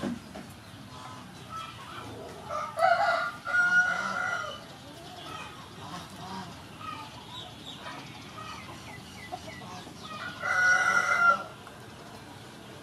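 A rooster crowing twice: a longer crow about three seconds in and a shorter one near the end.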